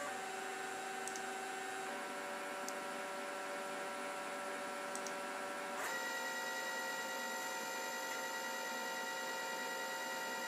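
Nema 34 stepper motor (960 oz-in) under a DM860A microstepping driver, running an x-axis move with a steady electric whine. The pitch shifts to a new set of tones about two seconds in and again near six seconds in, when a higher, brighter whine takes over.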